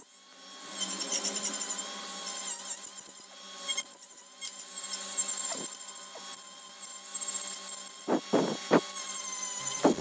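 A high-speed hand-held rotary tool with a small cutter bit carving a wooden cup's stem. It gives a high whine with repeated rasping bursts as the bit bites into the wood and lifts off again.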